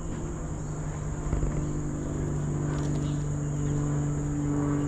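Steady, high-pitched insect drone of tropical forest crickets or cicadas, over a steady low hum with overtones that grows louder about a second in.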